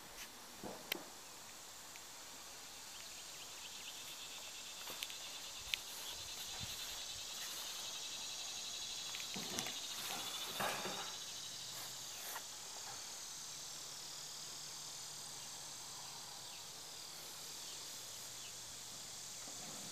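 Steady high-pitched chirring of insects, with a few faint sharp clicks and brief rustles.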